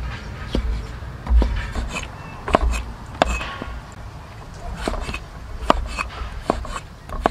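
A cleaver chopping pickled greens on a wooden cutting board: about eight sharp, irregular knocks of the blade striking the board.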